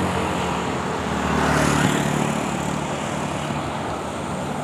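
Motorcycle and scooter engines running as they pass on the road: a steady low hum with road noise that eases slightly toward the end.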